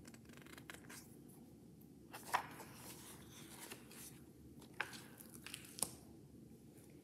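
Faint handling of a picture book: a few short paper rustles and soft taps as its pages are flipped and the book is moved, the sharpest about two and a half seconds in.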